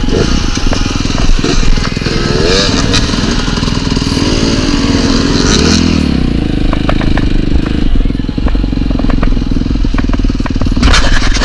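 Dirt bike engine running close to the microphone, revving up and down twice in the middle, with scattered knocks and clatter from the trail. It cuts off abruptly at the end.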